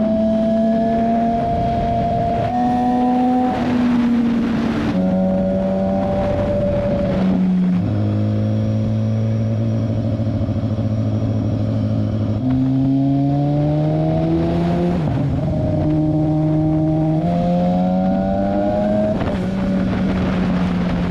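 BMW S1000RR inline-four engine running at road speed, its note dropping in pitch in steps through the first half and then climbing again in steps and short rises, as the rider changes gears and works the throttle.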